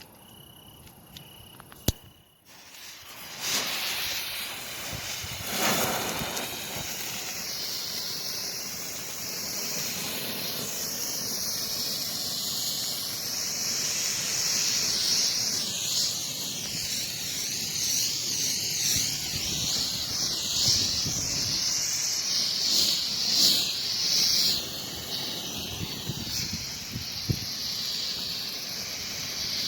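Green Bengal fire (Nico Feuerwerk, 20 g composition) lighting after a sharp click about two seconds in, then burning with a steady, wavering hiss.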